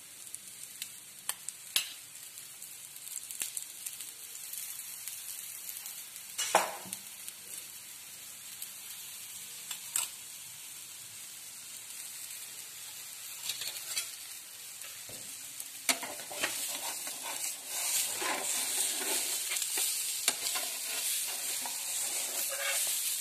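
Oil sizzling steadily around the edges of a thin gram-flour (besan) tomato omelette frying on a hot flat pan (tawa), with a few light clicks scattered through; the sizzle grows louder about two-thirds of the way in.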